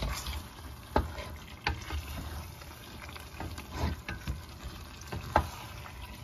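Chicken and spice masala frying in oil in a pan over lowered heat, with a spoon stirring it and knocking against the pan a few times; the loudest knock comes about five seconds in.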